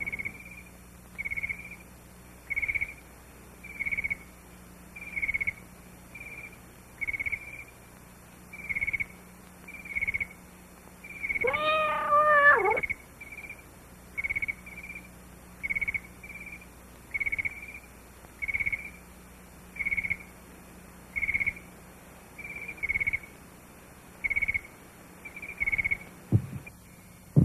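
A cat gives one drawn-out meow about halfway through, its pitch rising and falling. Under it, a short high chirp repeats steadily about every second and a quarter, over a faint low hum.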